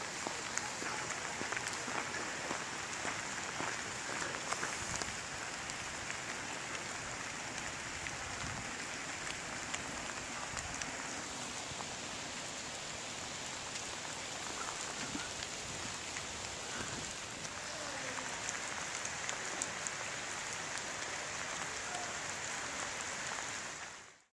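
Steady rain falling on paving and fallen leaves, a constant even hiss, fading out near the end.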